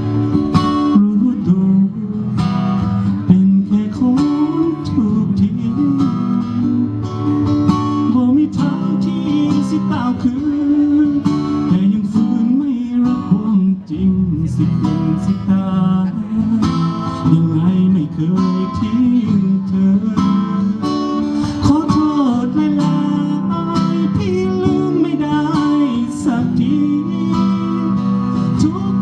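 A song played on acoustic guitar with a voice singing the melody.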